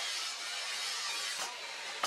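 Steel blade, forged from a motorcycle brake disc, moved across a steel anvil, with two light metallic clinks, one at the start and one about one and a half seconds in, over a steady hiss.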